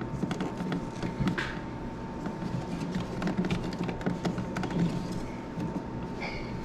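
Irregular small clicks, taps and scrapes as insulated wires and a wall outlet are pushed and worked back into an electrical box, over a faint steady high hum.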